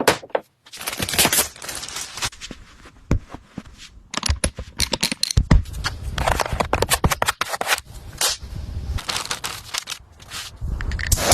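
An irregular run of sharp clicks, knocks and scraping from tools working on a car body.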